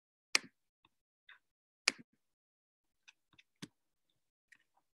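Sharp clicks of a computer being worked, scattered and uneven: the three loudest about a third of a second in, near two seconds and just past three and a half seconds, with fainter ticks between.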